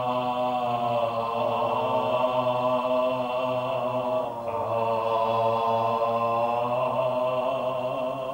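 Male voices chanting Buddhist liturgy (Japanese shōmyō) in long, slowly drawn-out notes, with a short break for breath about four seconds in.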